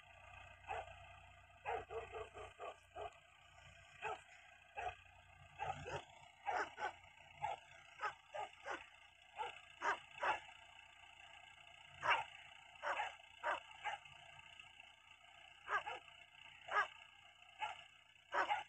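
Dogs barking: a long, irregular run of short single barks, some coming in quick clusters of two or three, others spaced a second or more apart.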